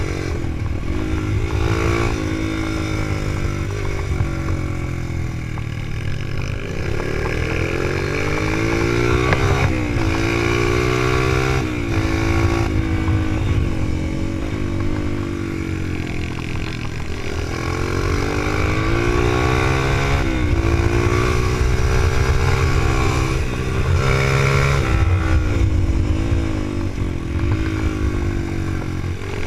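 Supermoto motorcycle engine heard from the bike itself, revving up and dropping back again and again. The pitch climbs as it accelerates out of corners and falls sharply on shifts and when the throttle closes for the next turn.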